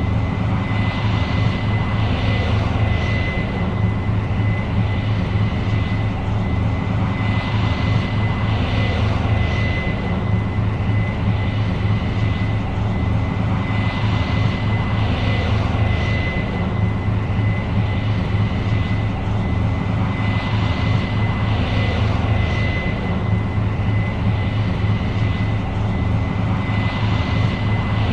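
Case IH 8230 Axial-Flow combine running steadily while harvesting soybeans: a deep engine drone under a thin, steady high whine, with a hiss that swells and fades every several seconds.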